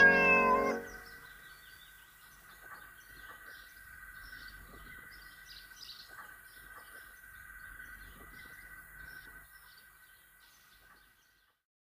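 The last notes of music die away in the first second, leaving faint birdsong: small birds chirping again and again over a steady high hum. It fades out about a second before the end.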